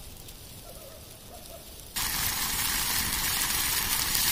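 Quiet outdoor ambience, then about two seconds in a loud, steady sizzling hiss starts abruptly: a pot of stew simmering on a campfire's burning logs, with a few crackles from the fire.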